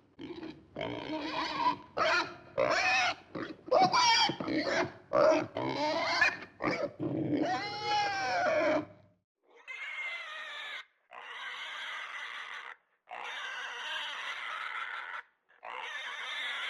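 A pig calling: a quick run of short, loud, pitched calls that bend up and down for about nine seconds. After a brief pause come four quieter, longer, rougher calls, each a second or two long.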